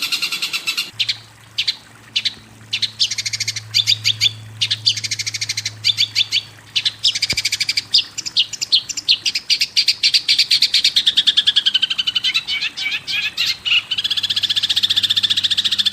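Songbird chirping in fast, repeated trills of short high notes that stop and start again several times, over a steady low hum. This is a bird-song tutoring ('masteran') recording of the kind played to teach a caged long-tailed shrike new songs.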